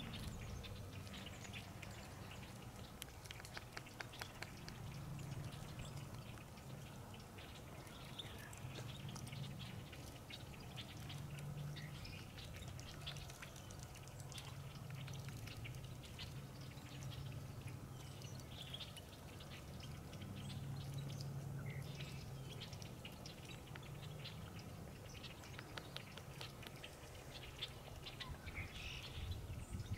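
Quiet marsh ambience: scattered short bird calls and faint crackling over a low hum that swells and fades.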